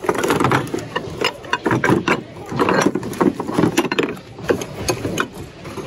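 Glass and ceramic dishes clinking and clattering irregularly as they are shifted around by hand in a crowded bin.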